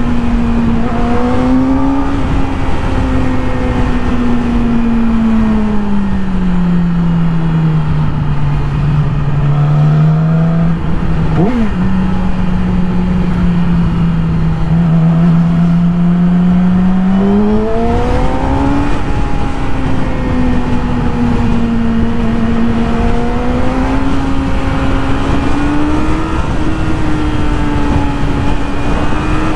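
Yamaha YZF-R6's inline-four engine at cruising speed, its pitch slowly falling and rising with the throttle, with one brief sharp blip a little before halfway.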